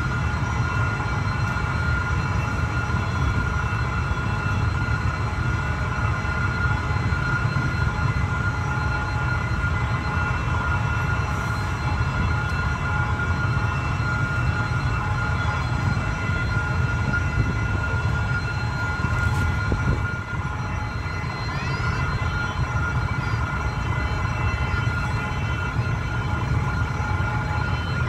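Diesel-electric locomotive running steadily: a continuous low engine rumble under a constant high whine.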